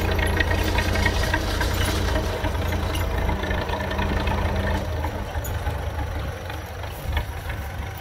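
Belarus 825 tractor's diesel engine running under load as it pulls a trailer, with a steady low hum that grows fainter from about five seconds in as the tractor moves away.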